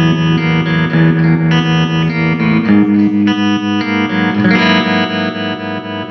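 Electric guitar played through a Fender Twin Reverb reissue valve amplifier, sustained chords ringing and changing about two and a half seconds in and again about four and a half seconds in; the amp is being sound-tested after a repair.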